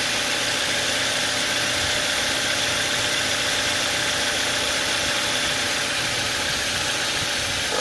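2014 Toyota Wish engine idling steadily, a steady hum over an even hiss, recorded as an abnormal engine noise.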